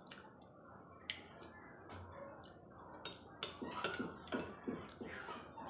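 Metal spoon clicking and scraping in a ceramic bowl of rice porridge, mixed with mouth sounds of eating: a string of small clicks, coming more often in the second half.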